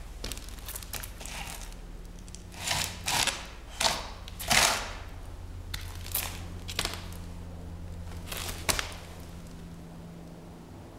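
Short crunching, scraping noises on a gritty, debris-strewn floor: a cluster of them about two to five seconds in, then a few sharper clicks, over a low steady hum.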